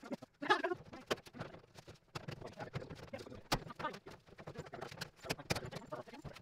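Scattered clicks, taps and knocks of the dryer's sheet-metal and plastic cabinet panels and parts being handled and fitted back together, at an irregular pace.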